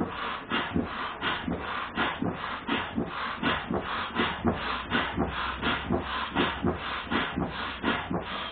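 Rhythmic hissing strokes of an air pump, about three a second, as the inflatable PVC boat is pumped up.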